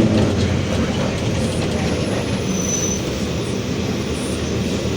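Mercedes-Benz OF-1721 city bus under way, heard from inside: a steady, even rumble of drivetrain and road noise with no strong engine note. It carries the growl of the rear differential that the uploader calls 'roncando'.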